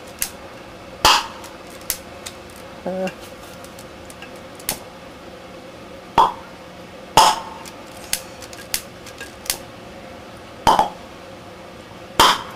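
Bubbles of oxyhydrogen (HHO) gas from a home-made water-and-baking-soda electrolysis generator being lit with a lighter at the surface of a glass jar of water. They go off as sharp pops, about five loud ones spaced unevenly, with smaller snaps and clicks between.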